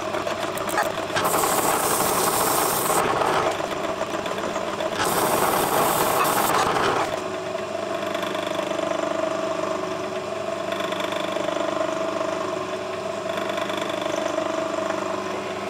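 Workshop machinery running continuously. For about the first seven seconds there is a rough, harsh grinding-type noise, then it settles into a steady motor hum with a held tone.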